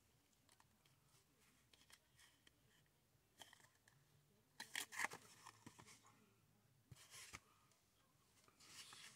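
Quiet rustling and scraping of a small cardboard product box being handled and slid open, with a louder cluster of scrapes about five seconds in and a few softer ones later.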